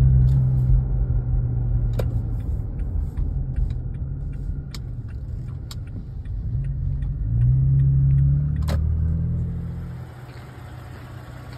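Toyota pickup truck driving, heard from inside the cab: steady engine hum and road noise, with a few sharp knocks and rattles. About two-thirds of the way through, the engine note rises and swells as the truck accelerates, then drops away near the end.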